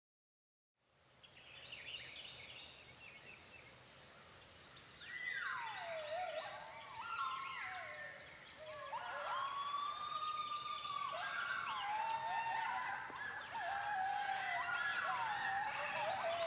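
Coyote mom/pup serenade played on a predator call: overlapping howls and yips gliding up and down in pitch, starting about five seconds in and getting louder toward the end, over a steady high-pitched tone.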